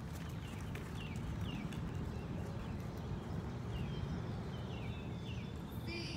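A horse's hoofbeats, muffled on soft dirt arena footing, over a steady low rumble, with short downward bird chirps now and then.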